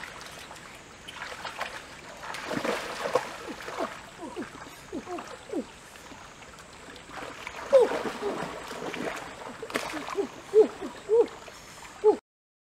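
Shallow stream water splashing, sloshing and plopping as legs and hands move through it, with a few sharper splashes in the second half. It stops abruptly near the end.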